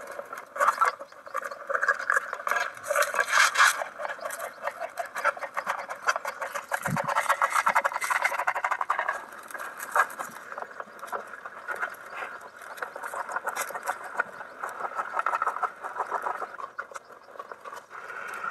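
Steady, busy chatter of farmyard fowl, with sharp knife chops on a wooden cutting board among it.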